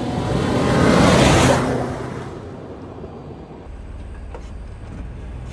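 A Jeep Wrangler drives past on a sandy dirt trail, its engine and tyre noise swelling to a loud peak about a second in and then fading. After that, a quieter steady low engine rumble.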